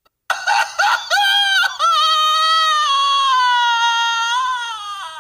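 A loud high-pitched vocal cry: a few short broken cries, then one long held note whose pitch slowly sinks before it breaks off.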